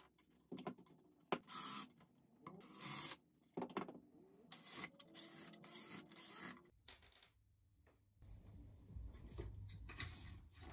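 Hassock fan parts being handled and moved during disassembly: a series of short scraping and rubbing bursts over the first six seconds, then a faint low rumble near the end.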